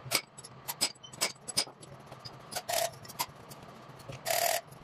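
Hand hammer tapping on metal parts in a steel cylinder head: four sharp metallic knocks in the first second and a half, followed by two longer clattering scrapes of metal on metal near the middle and near the end.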